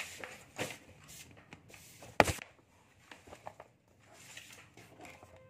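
Paper sheets and a book being handled, with scattered rustles and small clicks and one sharp knock about two seconds in.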